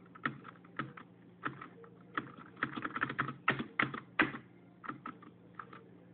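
Computer keyboard keys being pressed: irregular clacking taps, some in quick runs, busiest in the middle.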